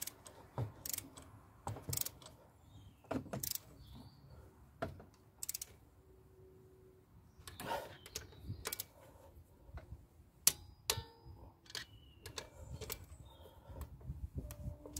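Click-type torque wrench ratcheting on cylinder head bolts of a Rover K-series engine as they are tightened to the first stage of 20 Nm, giving irregular metallic clicks and knocks. The sharpest click comes a little past halfway.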